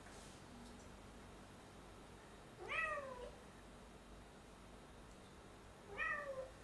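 A cat meowing twice, about three seconds apart; each meow rises quickly in pitch and then slides down.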